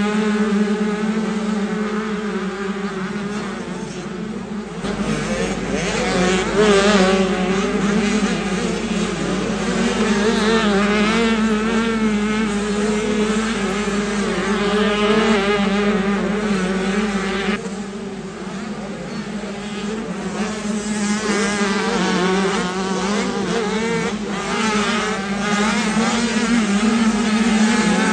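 Several 65cc two-stroke motocross bikes racing, their engines revving up and down and overlapping one another.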